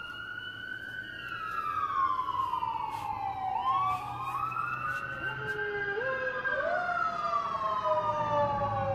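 Emergency vehicle sirens wailing in slow rising and falling sweeps a few seconds long, with a second siren overlapping the first from about four seconds in.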